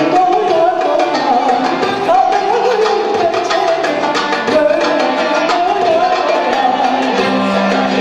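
A woman singing a Turkish art music song solo, in an ornamented, wavering melody, over percussion and instrumental accompaniment.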